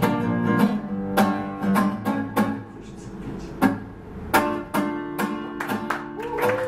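Nylon-string classical guitar strumming chords in the closing bars of a song, each strum ringing on before the next.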